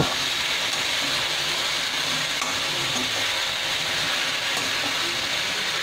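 Chopped onion, tomato and potato sizzling steadily in hot oil in a steel kadai as a spatula stirs them: a tadka frying.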